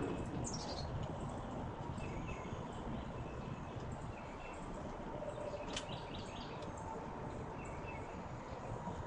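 Outdoor garden ambience: a steady background hush with scattered faint bird chirps, including a short quick run of chirps about six seconds in.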